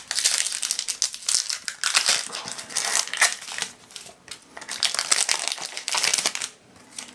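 Foil wrapper of a Pokémon TCG booster pack crinkling in the hands as it is opened and the cards are slid out, with a short lull partway through, dying down near the end.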